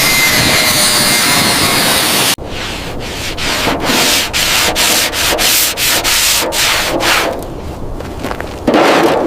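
Abrasive rubbing strokes, as in rust being sanded or scrubbed off a car body, going rapidly at about three strokes a second. They follow a loud steady hiss that cuts off suddenly about two seconds in, and a louder rush of noise comes in near the end.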